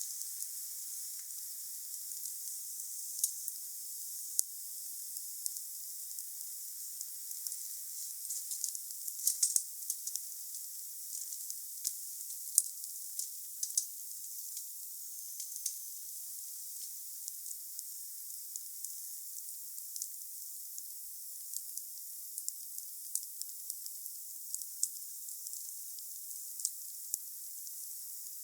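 Wood fire burning: a steady hiss with irregular sharp crackles and pops, a quick cluster of them about nine seconds in.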